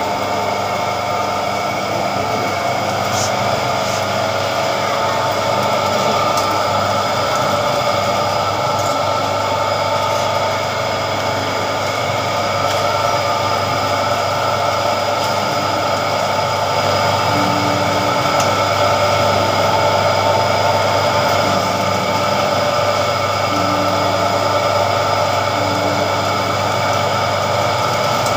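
Electric sugarcane juice machine running steadily, its motor humming as a stalk of sugarcane is fed in and crushed between its rollers.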